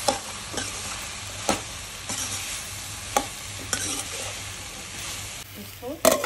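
Chopped okra sizzling in oil in a kadhai while a spatula stirs it, with a steady frying hiss and the spatula knocking and scraping against the pan now and then. Near the end the sizzle drops away and a steel lid clanks onto the pan.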